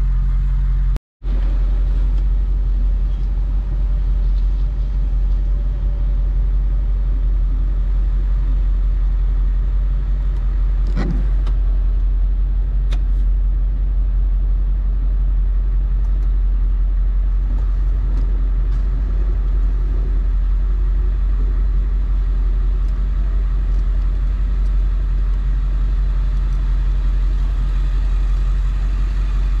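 A vehicle engine running steadily, a loud low rumble, briefly cut off by a gap of silence about a second in.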